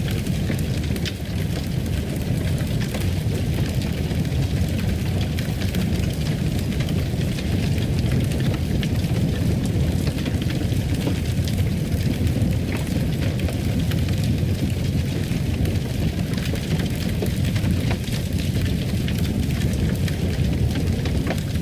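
Fireplace fire crackling: a steady low rumble with many small scattered pops and snaps.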